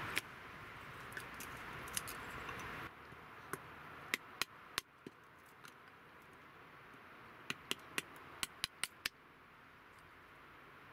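Hatchet striking wood on a chopping block as firewood is split into kindling: sharp knocks, a few spaced ones and then a quick run of about eight taps near the end.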